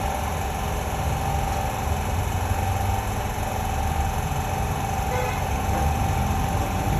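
Steady machine noise: an even hiss over a low rumble, with one constant whine held throughout.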